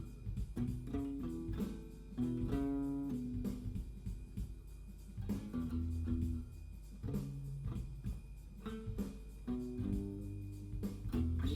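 Guitar improvising a blues, single plucked notes and short phrases over low bass notes.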